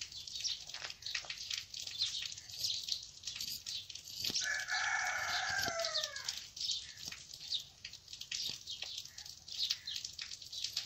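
A rooster crowing once, a single call of about two seconds a little before the middle, falling in pitch at its end. Short high ticks and rustles run throughout.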